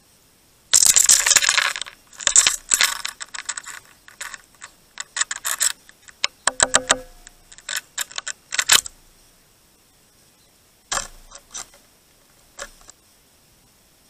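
Small birds pecking and scrabbling right at the microphone: bursts of rapid sharp taps and clicks, dense for the first several seconds, stopping about nine seconds in and coming back briefly near the end.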